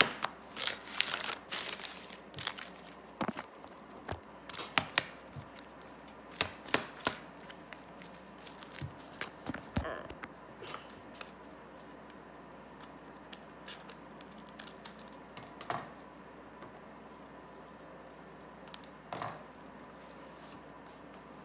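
Paper towels and a paper packet rustling, crinkling and tearing, with scissor snips and small clicks of things handled on a countertop. The sounds come in short bursts, busiest in the first seven seconds and only now and then after that.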